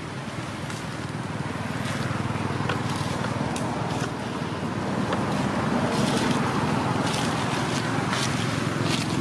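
Steady outdoor background noise, a low rumble with hiss over it, growing a little louder over the first few seconds, with scattered faint clicks.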